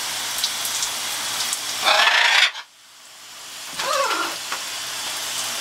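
Shower water spraying steadily over perched macaws. About two seconds in a louder rush of noise cuts off abruptly, and a short call sounds near four seconds in.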